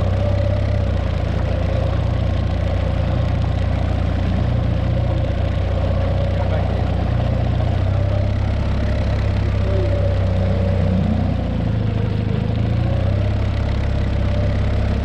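Outboard motor running steadily as a small inflatable boat moves along, with a low rumble of wind and water against the hull.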